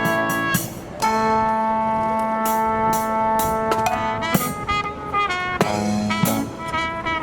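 Marching brass band of trumpets and trombones with drums, playing a long held chord that starts about a second in, with cymbal crashes through it. Strong wind rumbles on the microphone underneath.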